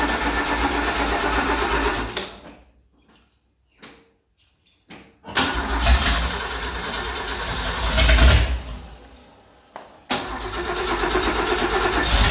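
Holden HR's 186 inline-six, bored to 192 and fitted with X2 twin carburettors, being started after installation: it runs, dies about two seconds in, fires up suddenly again after about five seconds, revs and fades out, then catches once more near the end. It keeps stalling because it is starved of fuel, the fuel pump not yet being connected to the tank.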